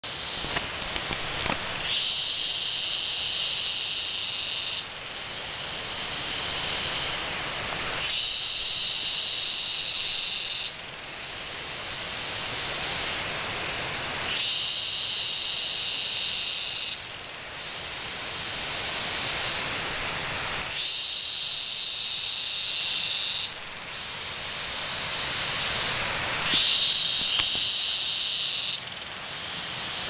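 Cicadas shrilling in a forest, in cycles: five loud, high-pitched bursts of about three seconds each, starting suddenly about every six seconds and falling back to a softer drone in between.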